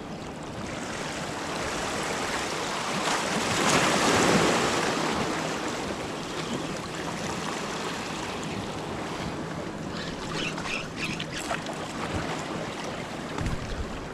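Small sea waves washing and lapping against shoreline rocks, one swell building to its loudest about four seconds in and easing off, with a few faint ticks late on.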